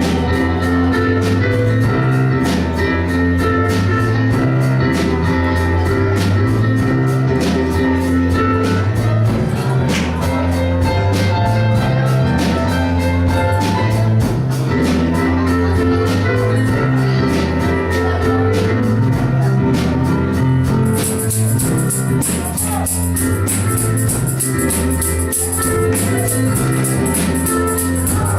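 Church offering music: bass guitar and drums keep a steady beat under other instruments. About two-thirds of the way through, a tambourine starts shaking steadily on top.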